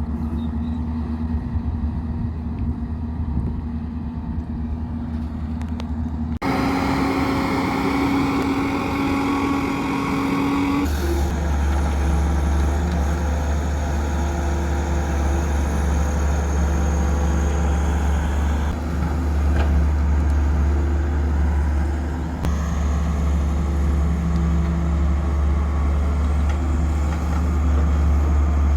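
Heavy diesel construction machinery running steadily, the sound changing abruptly about six and eleven seconds in.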